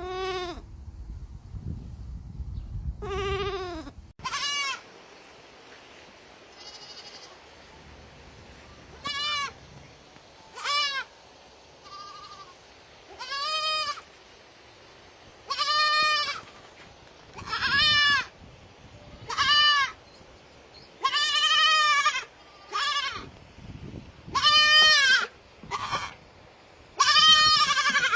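Baby goats (kids) bleating over and over: about fifteen short, quavering cries a second or two apart, some louder and closer than others. There is a low rumble under the first few calls.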